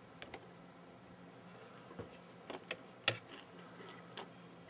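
A few faint, short clicks and taps, the loudest about three seconds in, as a soldering iron and copper desoldering braid are worked against a 3D printer's hot-end circuit board to wick solder off the old thermal fuse's joints. A low steady hum runs underneath.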